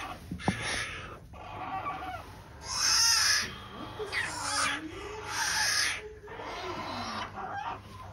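Newborn sloth bear cubs crying: a run of loud, wavering squalls that rise and fall in pitch, the loudest about three seconds in.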